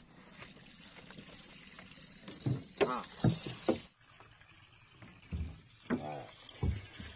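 Short gurgling splashes of water against a small wooden boat, with a few dull knocks on the hull, coming in two clusters after a quiet start.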